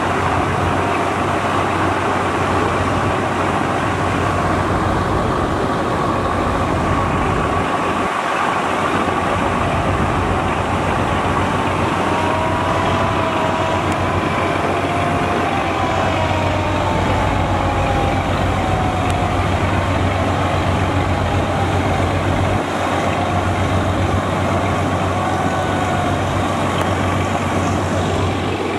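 Engines of large river passenger launches running at speed with a steady low drone, mixed with the rush of churned water from their bows and wakes. Faint whining tones drift slowly up and down in pitch above the drone.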